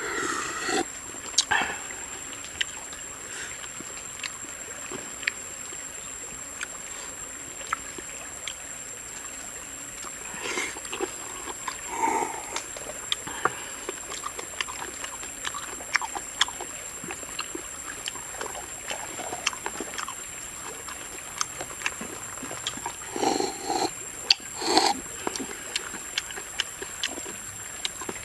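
A person eating boiled snails and crabs by hand: close, wet chewing and slurping mouth sounds with many sharp clicks of shells, and a few louder mouth noises, the loudest near the end.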